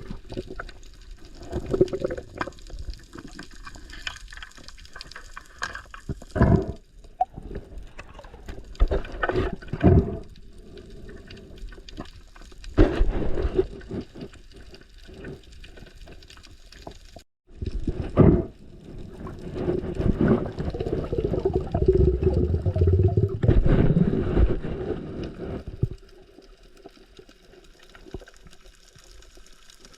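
Seawater sloshing, splashing and gurgling in irregular bursts, with a short break about two-thirds of the way in.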